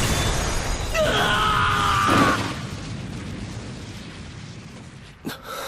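Cartoon sound effects of a Beyblade spinning top bursting apart: a loud crash at the start and a blast that slowly fades, with a drawn-out cry about a second in. A short sharp hit comes near the end.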